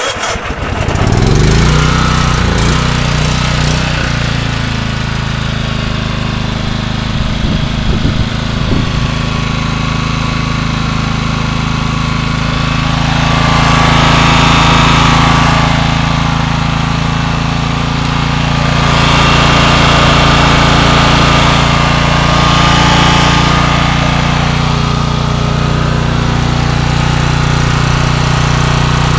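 Generac 4000-watt portable generator engine cold-started with its electric starter on half choke, catching about a second in and then running steadily. The sound swells a little twice along the way.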